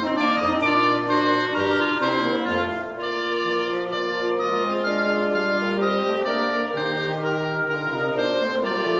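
Woodwind quintet playing classical music, several wind instruments sounding in harmony. Short detached bass notes in the first three seconds give way to longer held notes.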